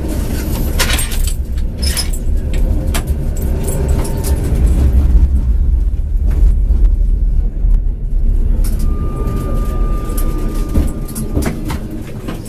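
A tram running slowly into a stop, heard from inside the driver's cab: a steady low rumble with scattered clicks, knocks and rattles from the wheels and car body. A single steady high tone sounds for about two seconds near the end as the tram closes up on the one ahead.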